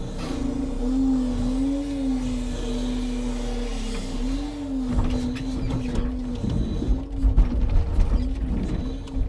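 Timber truck's log crane working: the hydraulic drive hums with a pitch that rises and falls as the crane moves. From about halfway through, birch logs knock and creak against each other in the grapple.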